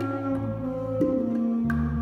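Live small-group jazz: a tenor saxophone plays a slow line of held notes that steps downward, over plucked double bass notes. There are a few soft hand-drum taps on bongos.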